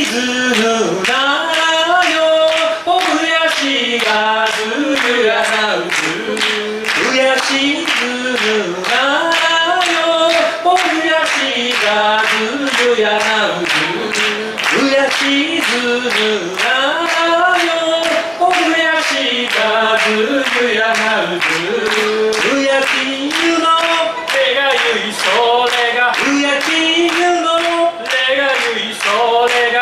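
A woman and two men singing a cappella in close harmony, with handclaps keeping a steady beat about twice a second.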